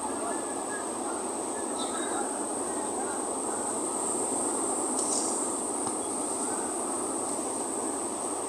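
Steady noise of sea surf and wind on an open beach, with a continuous thin high-pitched whine over it.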